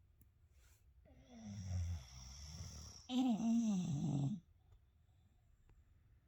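English bulldog snoring in its sleep: a rough, rumbling snore about a second in, then a louder, pitched snore whose tone falls.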